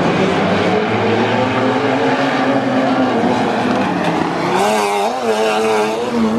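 A pack of wingless sprint car engines racing together as the field heads into the first corner. From about four and a half seconds in, the engine notes waver up and down as the drivers lift and get back on the throttle.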